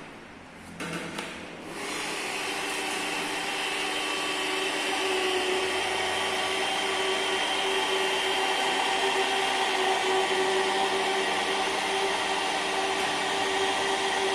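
A Stanley SP 137 1300 W electric rotary car polisher is switched on after a couple of handling knocks. Its motor then runs at a steady pitch with a whine, getting slightly louder as it goes.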